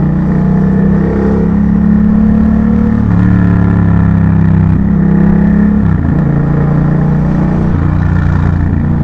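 Yamaha MT-07's 689 cc parallel-twin engine running under throttle as the bike is ridden. Its note changes pitch in steps several times, rising and dropping every second or two.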